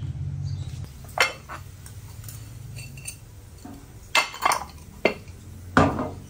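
Dishes and cutlery being handled: about six sharp clinks and knocks spread through, the loudest near the end, over a low steady hum that fades about halfway.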